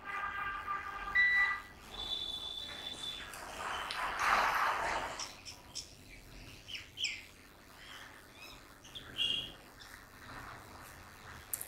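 Birds chirping in short, scattered high calls, with a brief rushing noise about four seconds in.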